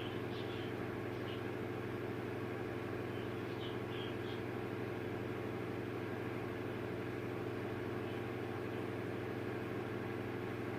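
Steady low mechanical hum, with a few faint, short budgie chirps in the first half.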